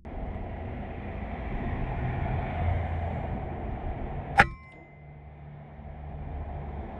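A single shot from a Kalibrgun Cricket II .22 PCP air rifle: one sharp crack about four and a half seconds in with a brief ringing after it. A steady traffic rumble runs underneath.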